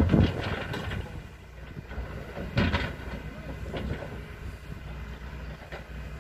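Hydraulic excavator working: its diesel engine running steadily, with a series of metal clanks and knocks as the bucket and arm work, the loudest right at the start and about two and a half seconds in.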